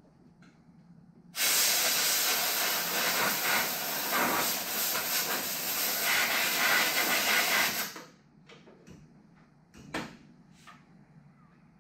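A pressurised jet hissing steadily for about six and a half seconds, cutting in and out abruptly, from work in the car's engine bay. A few light ticks and one sharp click follow near the end.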